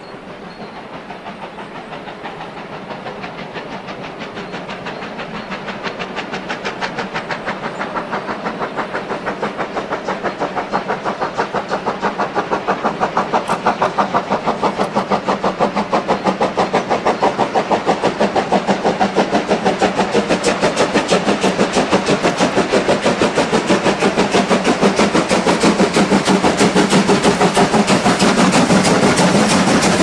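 Two steam locomotives working hard side by side, their exhaust beats a rapid, even chuffing that grows steadily louder as they approach. The rumble of the trains rolling on the rails builds under it.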